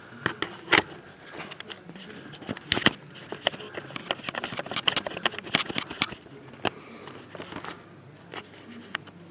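Handling noise at a bench: irregular clicks, taps and scraping, with a cluster of louder knocks around the middle, and no lathe motor running.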